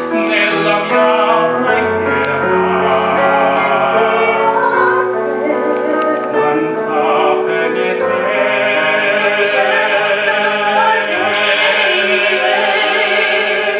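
A man and a woman singing together into a microphone, with long held, wavering notes over a steady instrumental accompaniment.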